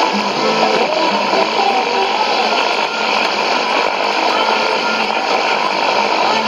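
Shortwave AM reception on a Sony ICF-2001D receiver tuned to 6160 kHz: a steady wash of static and noise with the station's programme faint underneath.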